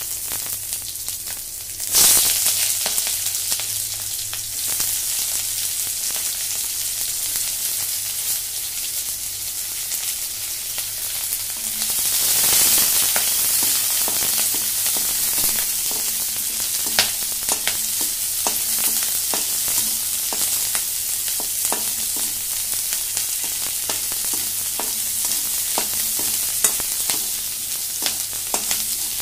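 Chopped onions sizzling in hot mustard oil in a kadai. From about twelve seconds in the sizzle swells, and a perforated metal spatula scrapes and clicks against the pan as the onions are stirred.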